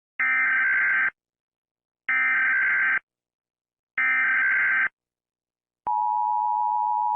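Emergency Alert System SAME header: three harsh digital data bursts, each about a second long and about a second apart. About six seconds in, the steady two-tone EAS attention signal begins.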